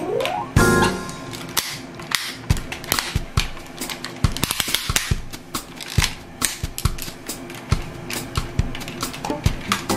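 Hard plastic parts and ratchet joints of a Tobot Athlon transforming robot toy clicking and snapping as it is transformed by hand, in a fast, irregular run of sharp clicks.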